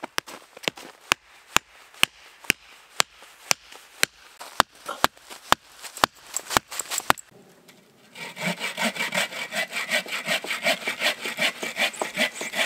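A run of sharp, evenly spaced clicks, about two a second, for the first seven seconds; then, after a short pause, a hand saw cutting through a wooden log in quick, steady strokes.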